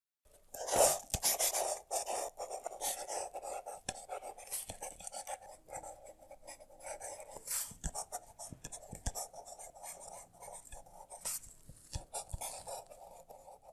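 Handwriting on paper: continuous scratching pen strokes broken by frequent short, sharp ticks, loudest about a second in.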